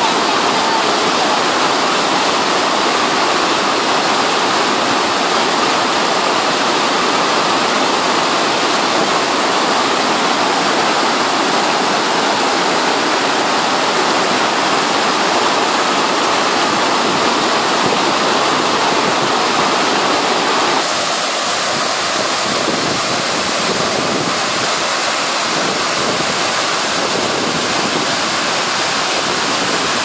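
Waterfall crashing down over rock and boulders: a steady, loud rush of water. About two-thirds of the way through the rush turns a little thinner and quieter.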